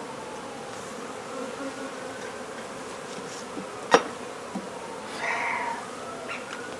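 Many honey bees buzzing steadily around a hive being removed, with single bees droning past close by, their pitch sliding up or down. About four seconds in, one sharp click is the loudest sound, followed by a fainter one.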